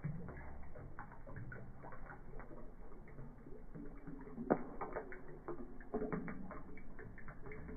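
Knife blade knocking on a husked coconut's shell, a run of irregular sharp taps with the loudest about four and a half seconds in, cracking the shell open.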